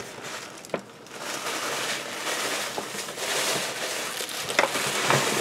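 Paper gift bag rustling and crinkling as a hand rummages inside it, with a few light knocks.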